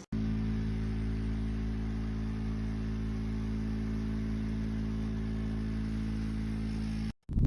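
Small battery-powered handheld fan running: a steady motor hum of several low tones with a faint airy hiss, cut off abruptly about seven seconds in.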